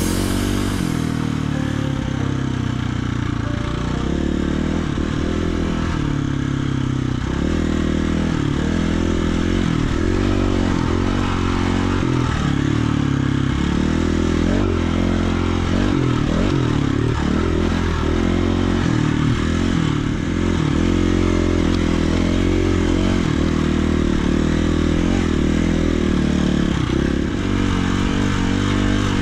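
Dirt bike engine running under way, its pitch rising and falling again and again as the throttle opens and closes.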